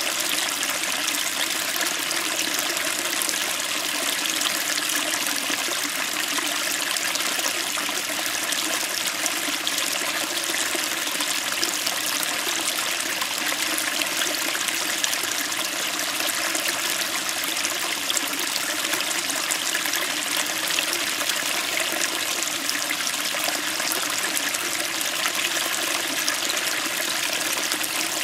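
Small stream flowing over rocks: a steady, even rush of water with crisp splashing and trickling where it breaks on the stones.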